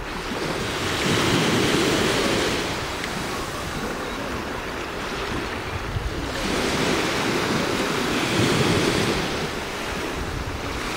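Small sea waves washing and lapping, swelling and easing twice, with wind buffeting the microphone.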